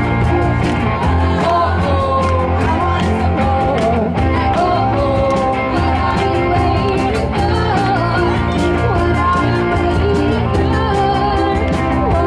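Live rock band playing: singing over electric guitar, bass and drums, at a steady full volume.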